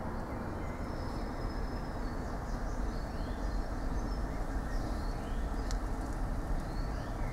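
Birds chirping now and then over a steady low rushing noise.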